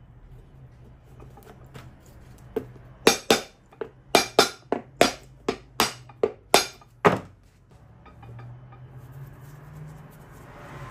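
A hammer striking in quick taps, about a dozen sharp metallic blows between about two and a half and seven seconds in. A low steady hum lies underneath.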